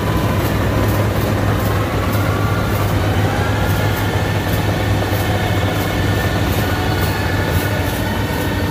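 Yanmar AW82V combine harvester running under load while cutting standing rice: a steady, loud machine hum with a whine that rises in pitch about two to three seconds in and then holds.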